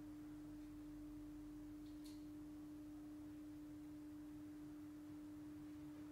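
A steady hum at one pitch, with a faint short click about two seconds in.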